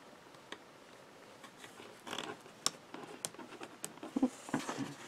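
Die-cut cardstock pieces being handled and pressed together by hand on a craft mat: little at first, then light rustling and a scatter of small taps and clicks from about two seconds in.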